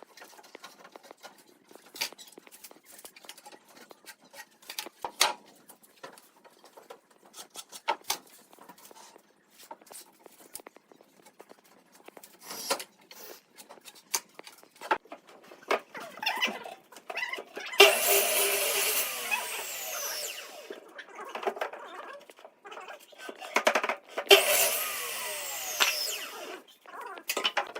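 Woodworking sounds: scattered knocks and taps of wood being handled, then two short runs of a power tool working wood, each lasting a few seconds.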